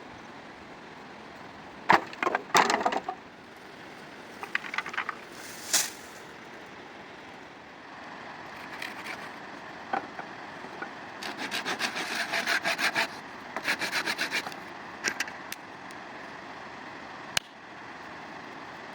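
Hand work on wood: sharp cracks about two seconds in, then two runs of quick rasping strokes near the middle, over a steady outdoor background.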